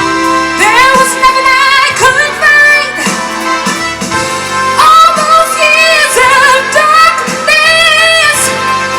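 A woman singing a soul ballad live, with strong vibrato on long held notes, over instrumental accompaniment.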